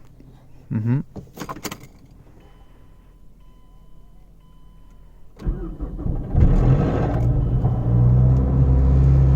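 Gen 1 Mazdaspeed3's turbocharged 2.3-litre four-cylinder cranking and catching a little over five seconds in, then running at a steady fast idle, after a few faint clicks and a faint beeping. A brief rattle of about half a second comes at start-up, which the owner takes to be the timing chain tensioner or VVT.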